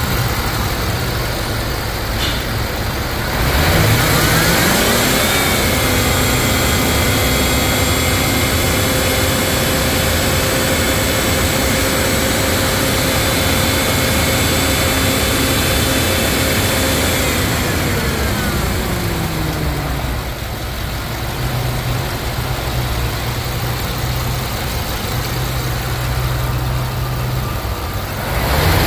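A 2011 GM/Chevrolet 6.0-litre gasoline V8 running. It idles, is revved up about three seconds in and held at a steady raised speed for about twelve seconds, then drops back to idle, and starts to rev again right at the end.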